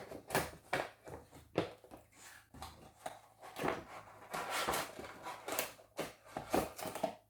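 A cardboard toy box being opened by hand, with irregular rustling, scraping and clicking of cardboard and plastic packaging.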